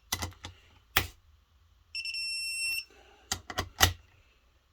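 A digital torque wrench gives one steady, high electronic beep of just under a second, about two seconds in, as a bolt reaches its set torque. Sharp metallic clicks and knocks of the wrench on the engine case come near the start and again a little after the beep.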